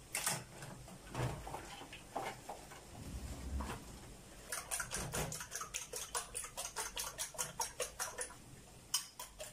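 Eggs being beaten by hand in a bowl: a quick, regular clicking of the utensil against the bowl, about five strokes a second, starting about halfway through. Before it come a few scattered knocks and clatters of the bowl and shells being handled.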